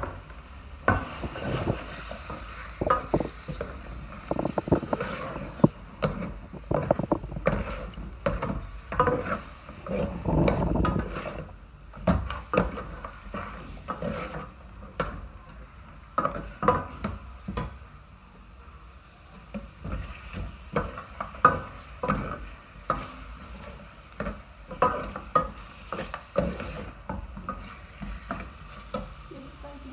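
A spoon stirring pieces of pork leg in a metal pot, with irregular clinks and scrapes against the pot over the sizzle of the meat frying.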